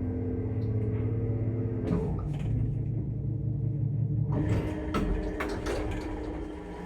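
Old Soviet lift machinery running: the hoist motor hums steadily, then at about two seconds clicks and changes to a different, lower hum. From about four seconds the hum gives way to clattering and sliding noises, typical of the lift car stopping and its doors opening.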